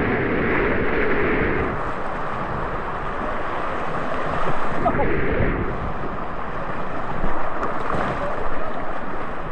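Fast water rushing and splashing around a tube in a water-slide rapids channel, heard from right at the water's surface so it sloshes close to the microphone. The water noise is steady, with a few louder splashes about halfway through and near the end.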